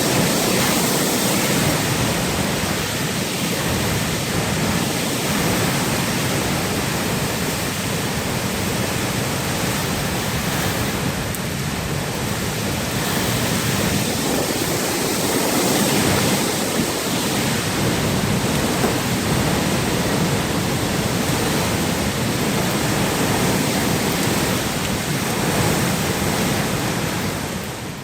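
Storm winds of a severe wind storm blowing hard: a loud, steady rushing noise that holds at about the same level throughout.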